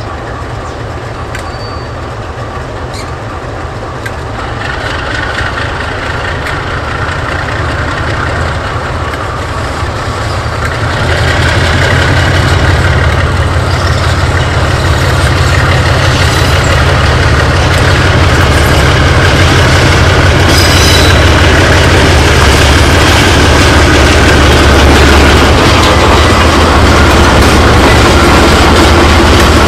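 Two KiwiRail DXB-class diesel-electric locomotives running past, their engines a steady low drone. It grows louder about four seconds in and again about eleven seconds in, then stays loud.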